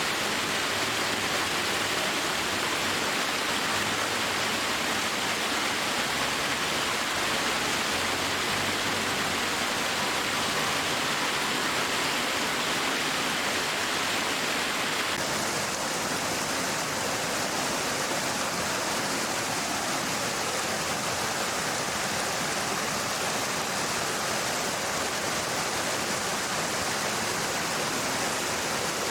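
Steady rush of water pouring over rocks, from a mountain stream or waterfall, with a slight change in tone about halfway through.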